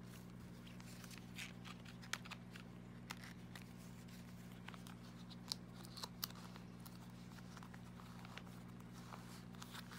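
Soft plastic rustles and small sharp clicks as photo cards and a paper bookmark are slid into and handled in clear plastic binder sleeves, over a steady low hum.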